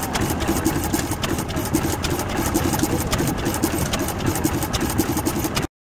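Vintage Crossley stationary engine running, with a steady beat of about four pulses a second and a light ticking over it. The sound drops out for an instant near the end.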